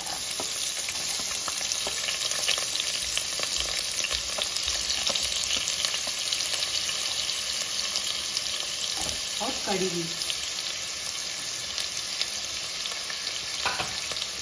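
Chopped onions sizzling in hot oil in a kadhai with green chillies: a steady frying hiss that jumps up as the onions are dropped in at the start.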